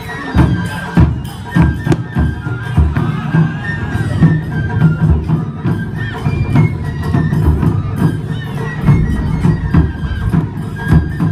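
Japanese taiko drum ensemble playing, deep strokes struck in an uneven pattern several times a second, with a high flute melody held and stepping in pitch over the drums.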